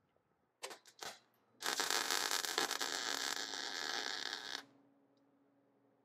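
Wire-feed welder arcing on the steel door for about three seconds, a dense crackling hiss that starts and cuts off abruptly. A few short knocks come before it, and a low steady hum carries on after the arc stops.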